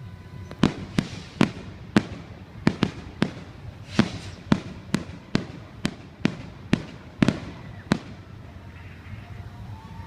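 Fireworks going off in a rapid run of sharp bangs, about two a second, each with a short echoing tail. The bangs stop about eight seconds in, leaving a low background rumble.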